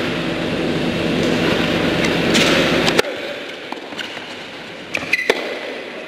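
A steady rumbling hum that cuts off suddenly about three seconds in, followed by the quieter sounds of a tennis rally on an indoor hard court: sharp racket-on-ball strikes and brief shoe squeaks.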